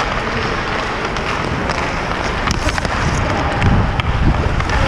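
Hockey skates striding and scraping on rink ice under a steady rush of noise, with a few sharp clicks and some low thumps about three and a half seconds in.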